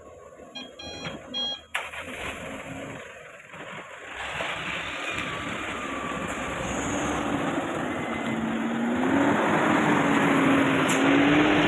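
Diesel engine of a heavily loaded light truck labouring at low speed through deep mud, growing louder as the truck passes close by, with a wavering engine note rising slowly toward the end.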